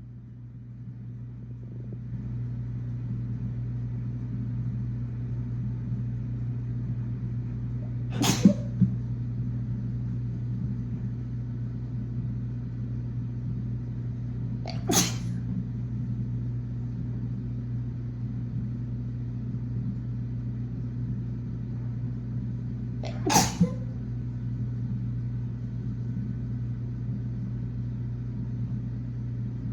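A woman sneezing three times, about seven to eight seconds apart, over a steady low hum.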